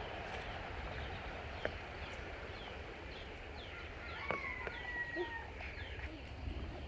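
Rural outdoor ambience with a bird repeating short downward-sweeping chirps about twice a second, and a steady whistled note held for about a second partway through.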